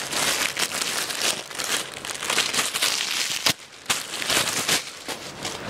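Clear plastic polybag crinkling as a packed shirt is handled, a dense crackly rustle that dips briefly about three and a half seconds in.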